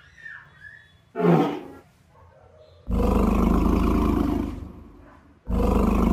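Dinosaur roar sound effects: a short cry falling in pitch about a second in, then a long, deep Tyrannosaurus rex roar from about three seconds, and a second roar starting near the end.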